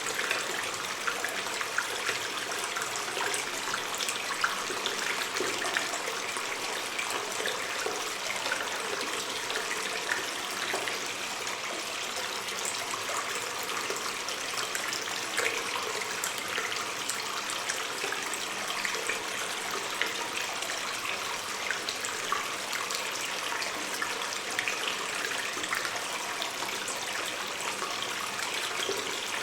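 Stream of water running and trickling in a cave, a steady rushing with many small splashes and drips.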